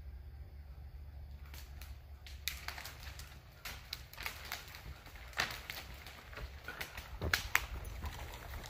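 Dry dead branches and twigs cracking and snapping irregularly, with rustling, as they are pulled out of brush and dragged; the sharpest snaps come in the second half.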